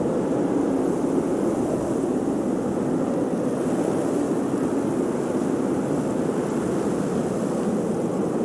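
Blizzard wind blowing steadily and evenly, a deep rushing noise with a fainter hiss of driven snow above it.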